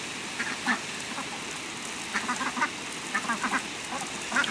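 Domestic ducks quacking in short runs of several quick quacks, over the steady hiss of a garden hose spraying water onto dry ground.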